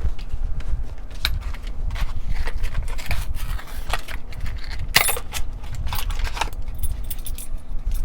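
Hands unpacking and handling a new Brinks padlock and its keys: irregular clicks and crackles of packaging, with keys jingling.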